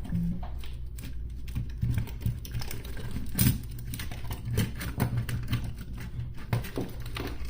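Irregular clicks, taps and rattles of a car radio's parts being handled during disassembly as the cassette mechanism is worked loose, with one louder knock about three and a half seconds in. A steady low hum runs underneath.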